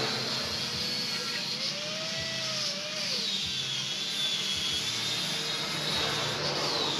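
Steady running of a handheld electric power tool's motor, a high whine that sags in pitch and recovers a couple of times, as under varying load on steel.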